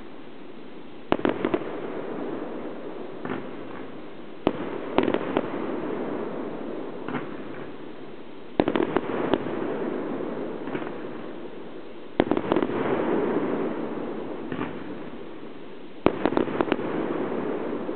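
Fireworks display: five volleys of sharp bangs, about one every four seconds. Each volley is a quick cluster of reports followed by a rolling echo that dies away.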